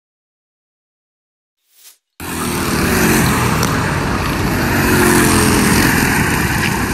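Silent for about two seconds, then racing karts' engines come in suddenly and run loudly as the karts lap the track, their pitch rising and falling.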